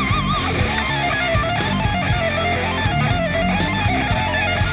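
Background music with electric guitar and a steady beat.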